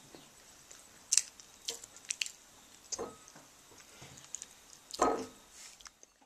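A scattering of small clicks and scrapes, with a louder knock about five seconds in.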